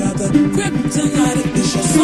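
Heavy dubstep music, with a fast, stuttering bass pattern under held synth notes.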